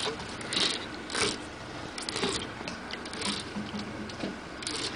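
Conventional saltwater fishing reel working under the load of a hooked fish, giving mechanical clicking and whirring in short, irregular bursts.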